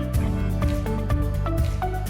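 Background music: a melodic instrumental track with notes struck at a steady pace over a sustained bass.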